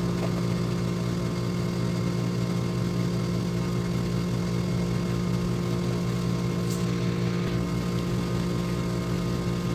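Steady machine hum with a low drone and several fixed tones above it, not changing in pitch or level.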